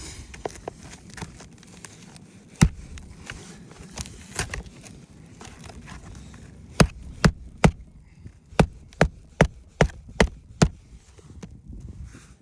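Hammer driving roofing nails to reattach asphalt architectural shingles: a single sharp strike, then a run of three and a run of six strikes, about two a second, with light scraping and handling noise between.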